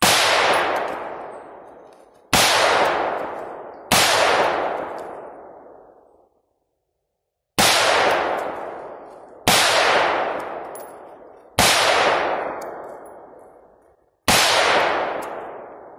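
AR-15 rifle fired seven times in slow, unevenly spaced single shots, each report ringing out and fading over about two seconds.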